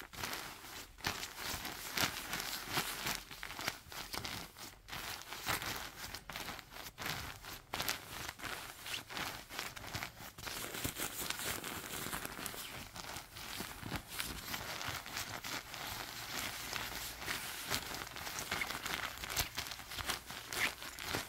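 Glossy nylon puffer jacket crinkling and swishing as a hand rubs and squeezes the quilted fabric: a dense, continuous run of crisp crinkles.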